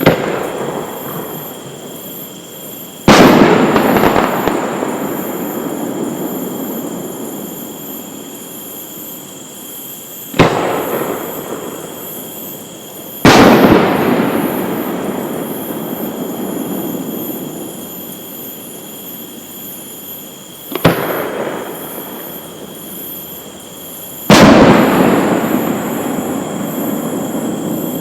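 Aerial fireworks shells going off. Three times, a sharp bang is followed about three seconds later by a louder bang that rumbles and dies away over several seconds.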